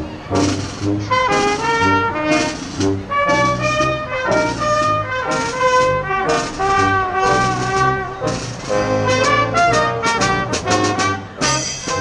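A live brass band playing: a sousaphone on the low bass notes under higher brass carrying the melody, with a steady beat.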